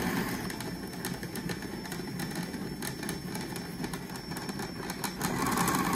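Braun food processor motor running steadily, blending a soft garlic mixture in its bowl. About five seconds in it gets louder and takes on a steadier whine.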